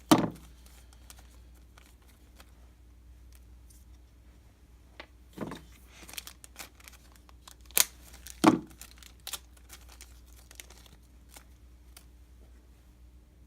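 Small plastic packets of hardware being cut and torn open and crinkled, with a few sharp clicks and many light ticks from handling the bags and the small screws, nuts and washers inside.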